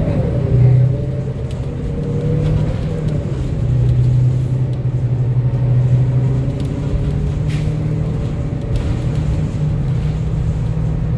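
2025 Gillig BRT 40-foot CNG transit bus under way, heard from inside the cabin: a steady low engine and road drone, with a whine that falls in pitch about a second in and a few light rattles.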